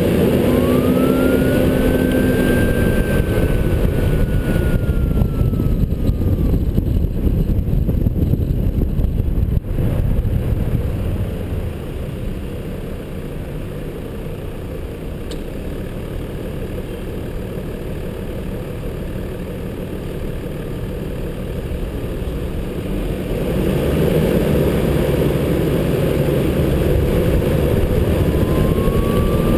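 A 4WD's engine and road noise, picked up by a camera mounted on the outside of the vehicle: it pulls away with a whine that rises and then slowly falls, runs quieter through the middle as it slows, and picks up again near the end with the whine rising once more.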